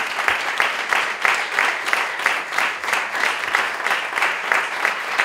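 Applause: a roomful of people clapping steadily, with individual hand claps standing out.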